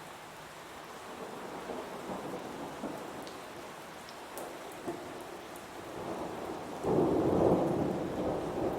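Heavy rain falling steadily, with thunder rumbling low from about a second in and a loud thunderclap near the end that rolls and fades.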